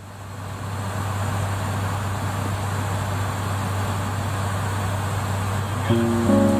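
Steady engine and airflow noise inside an airliner's cockpit in flight, with a constant low hum, fading in over the first second. Acoustic guitar notes come in near the end.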